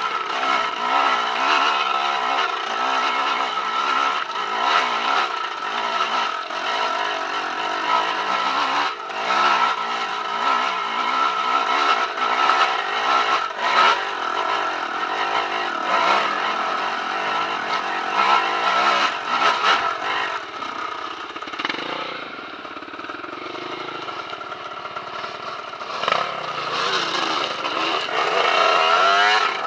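Off-road dirt bike engine pulling under load up a loose, rocky track, with stones knocking and clattering under the tyres. It eases off and goes quieter about two-thirds of the way through, then the revs rise and fall again near the end.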